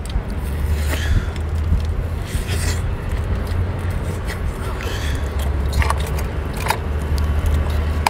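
Close-up eating sounds: biting and chewing into a cooked starfish's arm to get at the roe inside, with scattered small clicks and crunches. A steady low rumble runs underneath.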